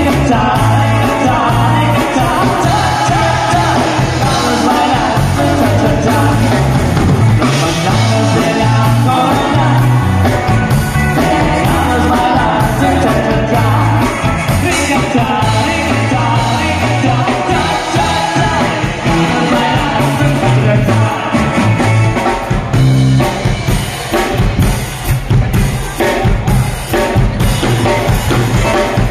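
Live rock band playing a song with singing, drum kit and electric guitars, loud through the PA speakers.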